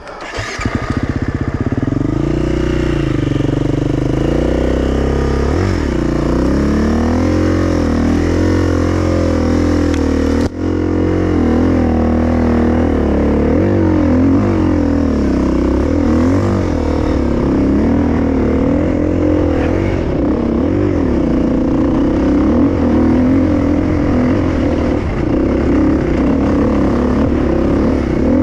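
Enduro motorcycle engine running hard, comes up sharply at the start, then revs rising and falling continuously with a brief break about ten seconds in.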